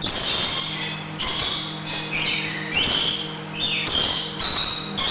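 Lorikeets screeching: a run of about six shrill, harsh calls in quick succession, each under a second long.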